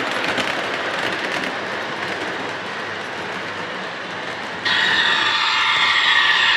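O-scale model train rolling past on metal track: a steady rolling rumble with rapid wheel clicks. About four and a half seconds in the sound jumps abruptly to a louder, higher whine of several tones as the model DD1 electric locomotives run by.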